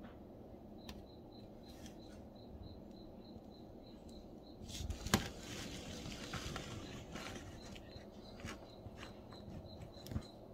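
A cricket chirping faintly and steadily, about four chirps a second, over a low steady background hiss. About five seconds in, a burst of rustling with one sharp click, the loudest sound, briefly covers the chirping.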